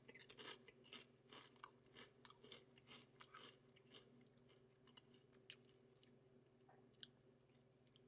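Faint crunching of Walkers Katsu Curry potato crisps being chewed, many small crunches in the first few seconds, then only an occasional one.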